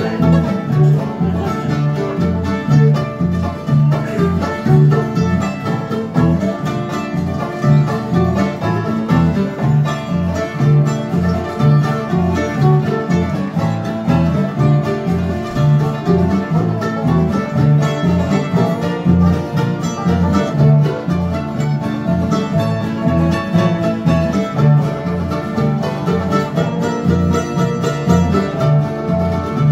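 A bluegrass jam with several acoustic guitars and other string instruments playing a tune together over a steady beat of bass notes, about two a second.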